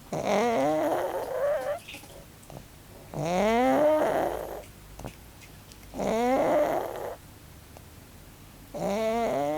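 Pug snoring loudly: four long snores about three seconds apart, each rising in pitch as it goes.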